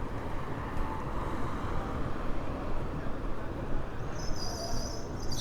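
City street ambience: steady traffic rumble from passing vehicles. About four seconds in, a high, shrill buzzing starts and keeps going.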